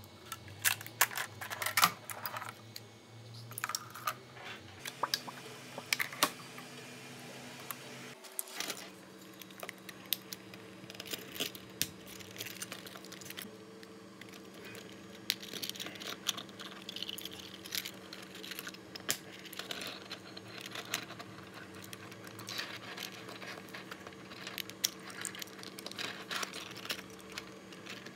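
Hard plastic clicking and clacking as 3D-printed plastic parts are handled, folded and snapped together by hand, with a low steady hum underneath.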